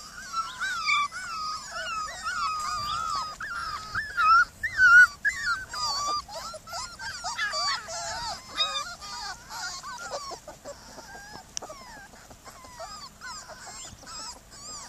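A litter of young Border Collie puppies whining and whimpering: many high-pitched cries that overlap and bend in pitch. They are busiest over the first nine seconds or so, then thin out and grow fainter.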